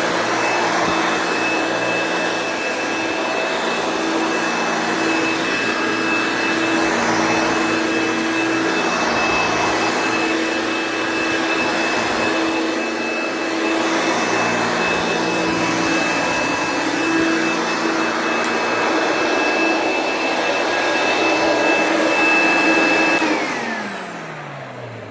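1964 Hoover Dial-A-Matic upright vacuum cleaner running steadily with a whine. Near the end it shuts off and its motor spins down, the pitch falling away.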